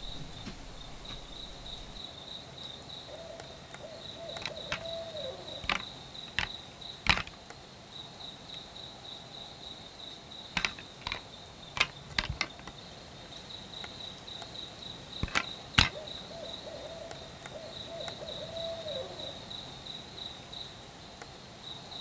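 An owl hooting twice, each a drawn-out hoot that drops in pitch at the end, over a steady pulsing chirp of crickets. About ten sharp clicks or snaps, scattered through the middle, are the loudest sounds.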